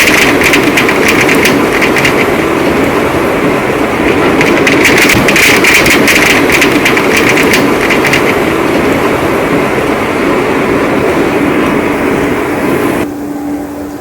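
Heavy rain pouring steadily, with spells of denser, crackling patter in the first couple of seconds and again midway. About 13 seconds in the sound drops abruptly to a quieter level, leaving a faint steady hum.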